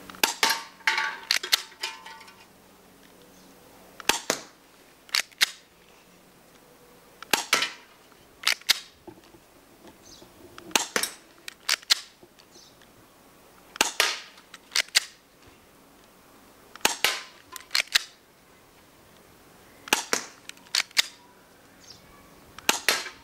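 KWC Taurus PT24/7 spring airsoft pistol being shot repeatedly: sharp snapping clicks, mostly in pairs about a second apart, a group every three seconds or so, about eight groups in all.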